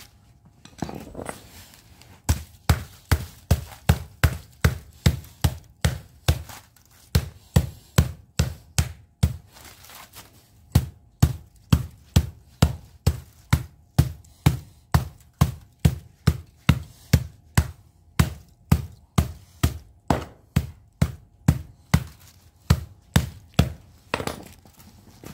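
Hammer striking the aluminium fins of a scrap radiator core to knock them off its copper tubes, in steady blows about twice a second, with a short pause about ten seconds in.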